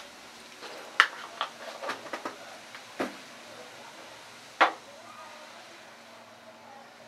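Sharp metal knocks and clicks of a nonstick frying pan being handled on a gas stove's burner grate. There is a loud knock about a second in, a quick run of lighter clicks just after, another knock at about three seconds, and a loud one a little past halfway as the pan is gripped and shifted. A faint steady hiss runs underneath.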